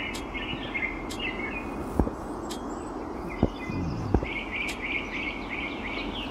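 Mobile game's outdoor ambience of birds chirping in short repeated calls, with several sharp clicks of menu buttons being tapped.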